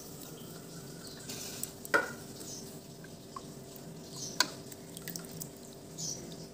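Water splashing and dripping in a stainless steel bowl as a hand scoops out shredded banana stem to drain it. Two sharp metallic clinks on the steel bowls, about two seconds in and again about four and a half seconds in.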